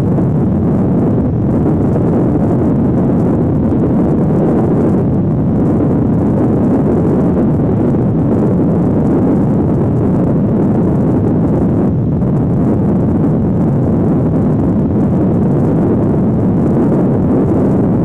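Steady wind noise buffeting the microphone, a loud even rush with no breaks.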